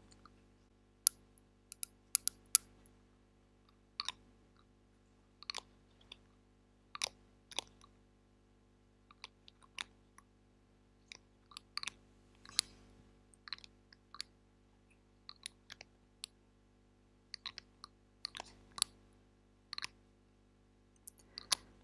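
Sharp, scattered clicks and taps of fingers handling a small glass dropper bottle and its plastic cap, coming unevenly, about one to three a second.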